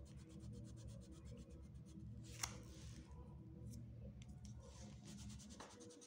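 Pink oil pastel rubbed on a drawing-book page in quick repeated colouring strokes, faint and scratchy, with one short click about two and a half seconds in.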